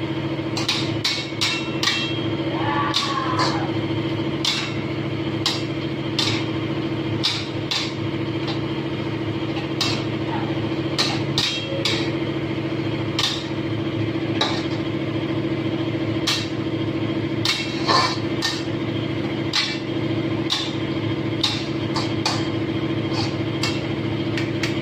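A generator runs with a steady hum under metal spatula strikes clanking and scraping against a steel wok as noodles are stir-fried. The sharp clinks come irregularly, about one or two a second.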